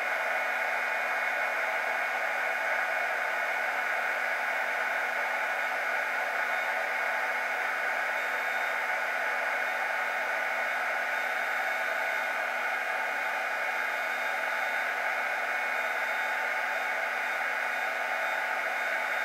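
Electric heat gun running steadily, a constant stream of blown air with a fixed fan hum, heating a broadhead's head insert and shank so hot melt glue will flow onto it.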